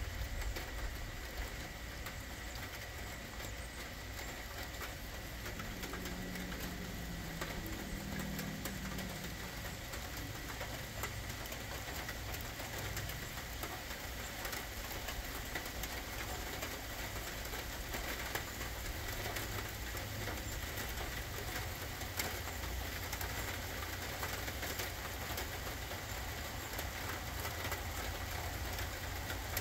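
Steady rain pattering, with a low rumble underneath and a brief low hum about six to nine seconds in.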